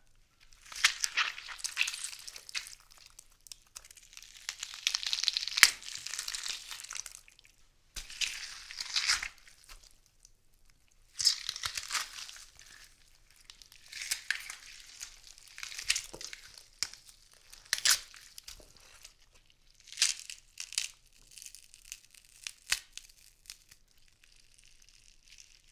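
A watermelon being broken apart for gore sound effects: crunching and tearing of rind and flesh in repeated bursts a second or two long, with a few sharp cracks among them.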